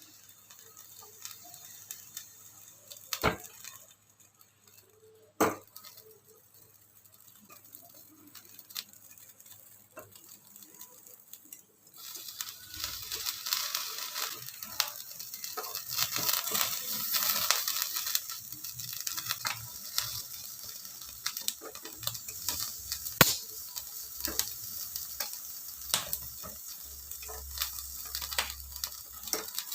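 Food sizzling and crackling as it fries in hot fat. The sizzle starts suddenly about twelve seconds in, after a quieter stretch with a couple of sharp knocks.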